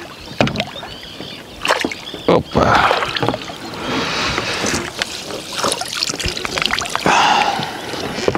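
Water splashing and sloshing beside a boat, with scattered knocks: a hooked pike thrashing at the surface as it is played in. The splashing comes in uneven surges, starting about two and a half seconds in.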